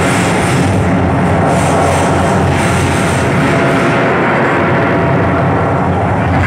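Loud, steady battle sound effects played over loudspeakers: a continuous, distorted rumble like gunfire and aircraft.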